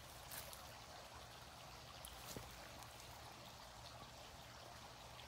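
Near silence: a faint, steady outdoor hiss, with a couple of faint ticks.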